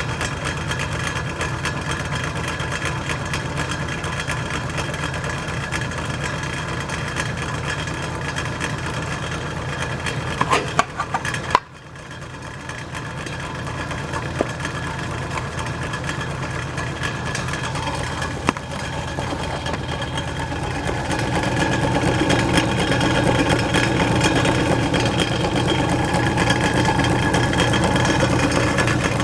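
Norge Rollator belt-drive refrigerator running: its GE electric motor turns the belt-driven Rollator compressor with a steady mechanical hum. A few clicks and a brief dip come about eleven seconds in, and it runs louder over the last third. The owner puts much of the noise down to the compressor's missing suspension springs.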